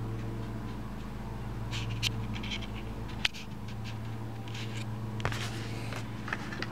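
Steady low electrical-sounding hum with a few soft clicks and rustles of handling. A sharp click comes a little over three seconds in, and the deepest part of the hum drops away after it.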